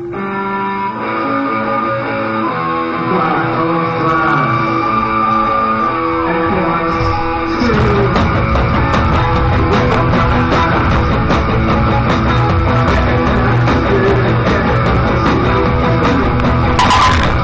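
Live rock band playing a song: it opens on held instrumental notes with some gliding bends, then about eight seconds in the drum kit and full band come in loud.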